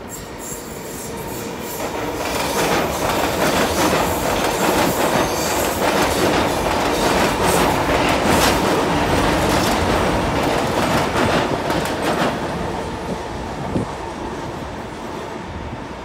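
Sydney Trains electric passenger train passing over a railway viaduct, its wheels clattering over the rail joints. It builds over the first couple of seconds, is loudest through the middle, and fades after about twelve seconds.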